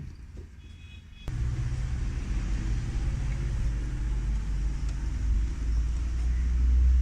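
A motor switches on suddenly about a second in and keeps running steadily with a low hum.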